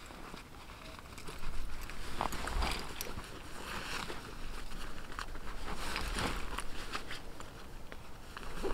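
Rustling and crinkling with scattered small clicks and crunches as camping gear is handled and packed away, growing louder about a second and a half in.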